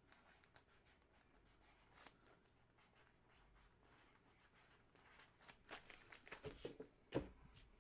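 Faint pen scratching on paper in short strokes, which grow busier in the last few seconds, with one sharp tap about seven seconds in.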